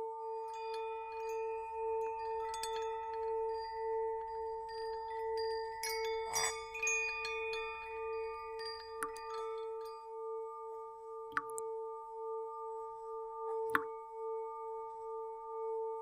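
Ambient music score: a held drone of two steady tones, the lower one gently pulsing, with scattered chime-like tinkling notes and a few sharp clicks.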